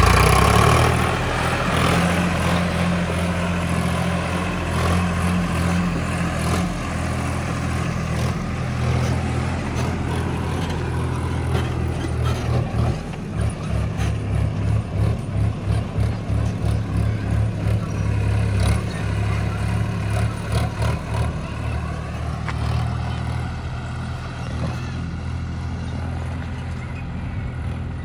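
Sonalika DI 42 RX tractor's diesel engine running as it pulls a trailer loaded with bricks away. It is loudest at the start, throbs unevenly in the middle, then slowly fades.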